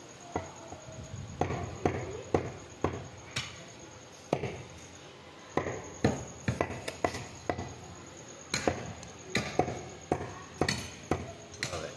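Meat cleaver chopping beef into cubes on a wooden log chopping block: irregular sharp knocks, some coming in quick runs of two or three.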